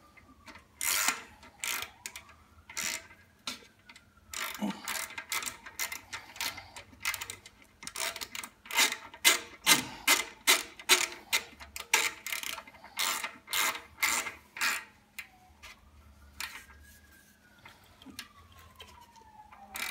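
Hand socket ratchet clicking in repeated bursts as it turns a bolt on a Harley-Davidson's slip-on muffler, each return stroke a quick run of clicks. The strokes come faster and louder through the middle, then thin out near the end.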